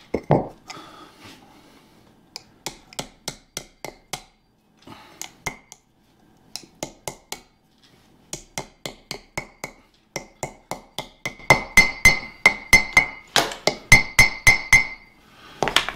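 Small hammer tapping a grease seal into the hub of a drilled and slotted disc brake rotor, working around the seal's edge without a seal installer. It is a run of sharp metal taps, about four or five a second in clusters, each leaving a ringing note from the rotor. The taps come quicker and louder from a little past the middle, as the seal is driven home.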